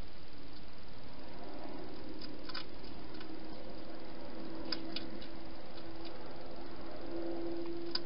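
A wild hedgehog eating from a bowl in a plastic feeding box: faint scattered clicks and crunches of chewing over a steady hiss, with a faint low hum that grows a little louder near the end.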